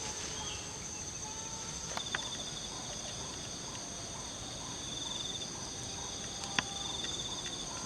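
Insects trilling steadily at a high pitch in two bands, one of them pulsing, with a faint chirp repeating about twice a second underneath. A couple of sharp clicks, one about two seconds in and a louder one near the end.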